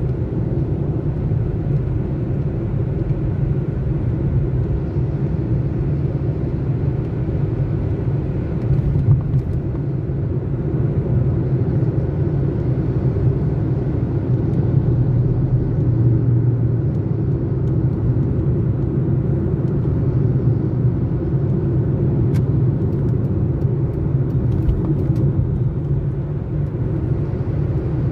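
Steady low rumble of a car driving on an expressway, heard from inside the cabin: tyre and engine noise.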